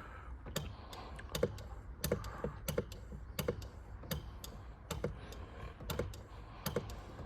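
Hand fluid pump being worked, clicking sharply at an even pace of about one and a half strokes a second as hydraulic fluid is pumped into the convertible top's hydraulic pump.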